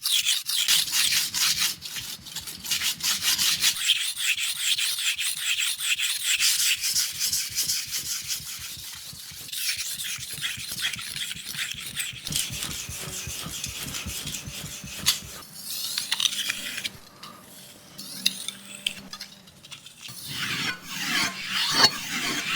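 Steel knife blade being sharpened, scraping in quick repeated strokes against the sharpener.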